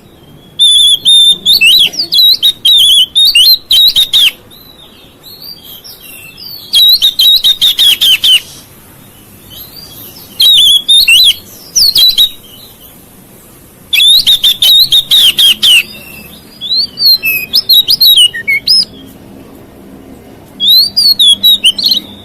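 Oriental magpie-robin (kacer) singing loud bouts of rapid, high whistled and chattering notes, about six phrases of one to three seconds each with short pauses between.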